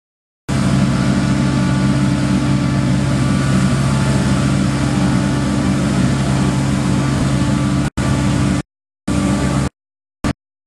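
TYMCO regenerative-air street sweeper running as it vacuums leaves: a steady drone from engine and blower, with a few constant low hum tones and a rushing hiss over them. Near the end it cuts off abruptly and comes back in short pieces.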